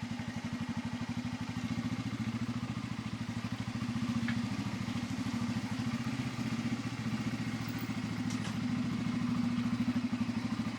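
Bajaj Pulsar N250's single-cylinder engine running steadily under way, its level swelling slightly a couple of times.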